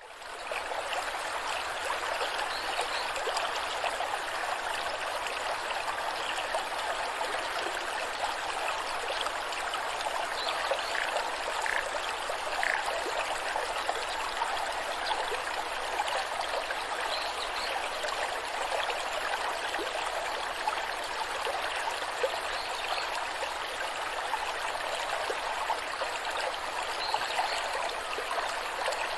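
Waterfall: cascading water making a steady rushing hiss that fades in from silence at the start.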